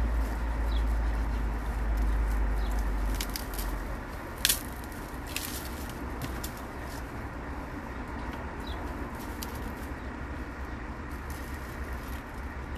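Dry leaves and twigs rustling and crackling as someone works by hand in leaf litter, with a few sharp clicks and one loud snap about four and a half seconds in. Wind rumbles on the microphone for the first few seconds, and a bird chirps faintly now and then.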